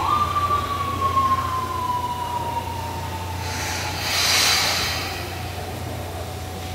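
Tobu 500 series Revaty electric train pulling in and braking: its inverter-driven traction motors give a whine that falls slowly in pitch as it slows, over a steady low hum. About four seconds in, a burst of compressed-air hiss comes as the train comes to a stop.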